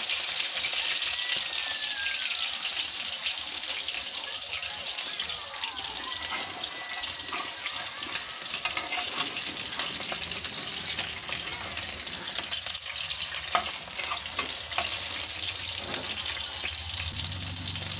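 Eggs frying in hot oil in a pan, a steady sizzle, with a metal spatula scraping and tapping against the pan again and again.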